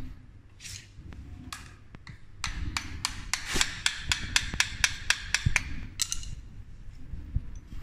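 Hand-tool work on an e-bike hub motor. A few single metallic clicks come first, then about two and a half seconds in a quick, even run of sharp clicks at about six a second that lasts some three and a half seconds.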